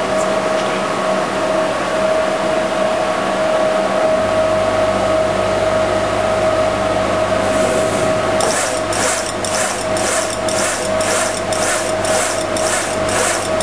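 105-watt Trotec CO2 laser engraver with air assist running, a steady hum with a constant tone and a deeper hum joining about four seconds in. From about eight seconds in a regular hiss pulses roughly two and a half times a second as the laser head sweeps back and forth engraving the cookies.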